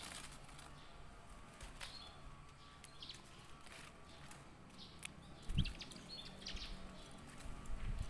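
Caged silver canary giving scattered short chirps and tweets. A soft thump about five and a half seconds in, and wing flutter near the end as the bird flies onto the perch.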